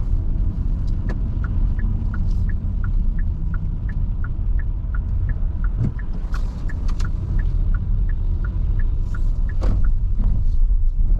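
Steady low road and engine rumble heard inside a moving car's cabin, with the turn-signal indicator ticking in an even rhythm of about three ticks a second, alternating between two pitches.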